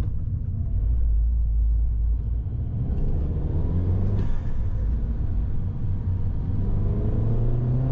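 Turbocharged Mini Cooper engine accelerating, heard from inside the cabin with the windows up: the engine note rises in pitch twice, with a short rush of noise about four seconds in as the revs drop between pulls.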